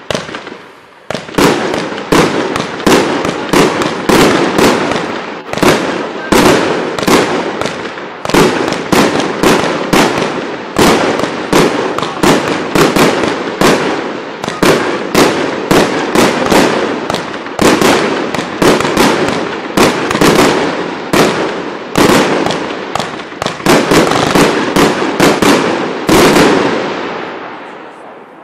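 Multi-shot fireworks cake, 'Meteor Shower' JF4264, firing a long rapid string of shots, about two to three sharp bangs a second, with a steady rushing noise between them. The barrage stops about 26 seconds in and the sound dies away.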